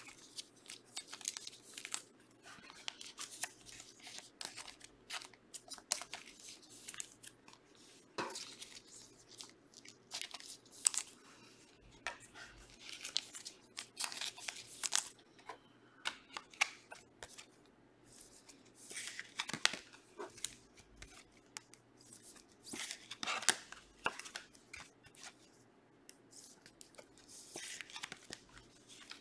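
Trading-card pack wrappers being torn open and cards handled: irregular short rips, rustles and light clicks, with a few louder rips around 14, 19 and 23 seconds in.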